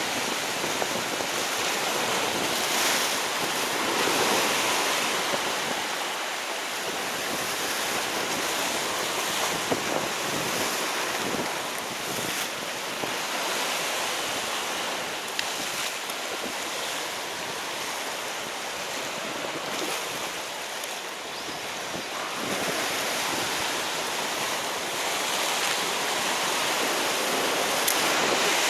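Sea surf washing against a rocky shore, with wind on the microphone: a steady rushing noise that swells and eases every few seconds.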